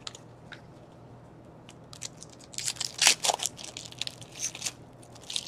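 Plastic-foil hockey card pack wrapper crinkling and crackling in the hands as a pack is opened and its cards handled, with a burst of crackles about two and a half to three and a half seconds in and a few more near the end.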